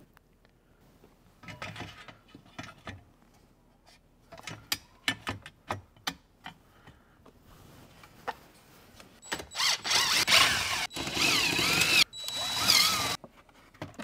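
Plastic zip ties being pulled tight around a wiring harness: three quick zipping ratchet runs near the end, their pitch sweeping up and down with the speed of the pull, after scattered light clicks of the harness and plastic trim being handled.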